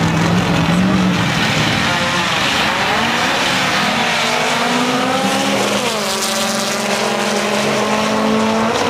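Drag-race car engine at full throttle, its pitch climbing, dropping at a gear shift about six seconds in, then climbing again.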